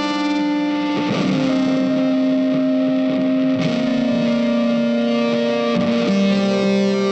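Background music: an electric guitar through effects and distortion, playing long held notes that change every couple of seconds.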